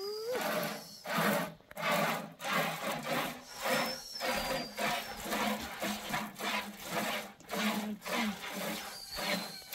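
Repeated rhythmic rubbing or scraping strokes, about one every three-quarters of a second.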